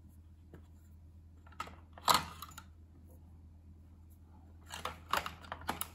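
Size C batteries and fingers clicking and clacking against a toy jet's plastic battery compartment as the batteries are fitted. There is a sharp knock about two seconds in and a run of quick clicks near the end.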